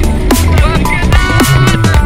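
Electronic music with a fast drum beat, heavy bass and wavering synth lines.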